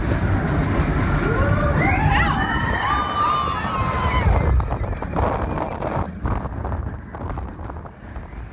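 Expedition Everest roller coaster train running at speed, a loud rumble with wind buffeting the microphone. Several riders scream over it from about two to four and a half seconds in, then the rumble eases, with some rattling.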